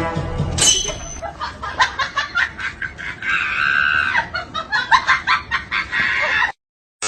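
Comic laughing sound effect: a short shrill cry, then a run of rapid cackling bursts with a held shriek partway through, cut off abruptly near the end.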